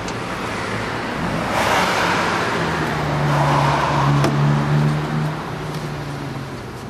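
Road traffic: a motor vehicle driving past, its engine hum and tyre noise swelling and then fading away.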